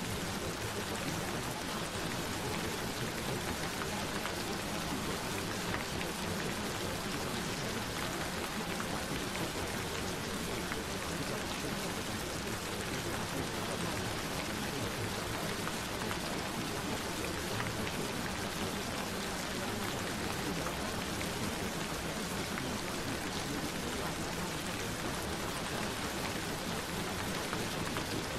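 Steady rain falling, an even hiss with scattered drops pattering.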